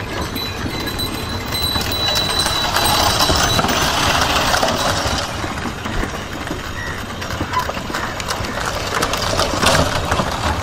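A procession of bullock carts on the move: the bullocks' hooves clopping and the carts' wheels rattling on the road, a steady busy clatter of many small knocks.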